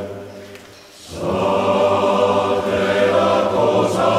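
Background music of a choir singing sustained notes. It fades down in the first second, then the voices swell back in and hold a steady chord.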